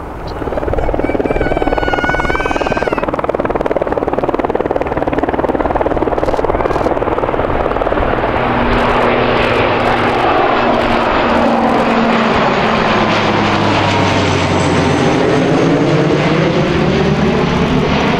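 De Havilland Canada DHC-8 (Dash 8) twin turboprop flying past low over the field, with loud, steady propeller and turbine noise and a low propeller hum. In the second half the sound takes on a sweeping, phasing quality as the aircraft passes overhead.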